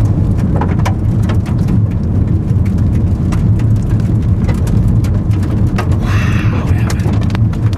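Strong wind buffeting the microphone: a loud, steady low rumble that starts suddenly, with scattered crackles throughout.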